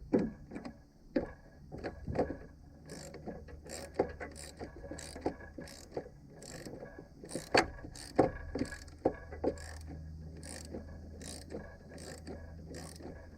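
Hand ratchet wrench clicking in steady back-and-forth strokes, about two a second, working a fastener loose. Louder knocks of tools against plastic and metal come in between, most of them in the first few seconds.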